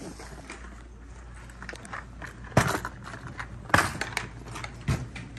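Handling noise from gear being picked up and moved: light rustling with a few sharp knocks, the two loudest about two and a half and nearly four seconds in, and a third near the end.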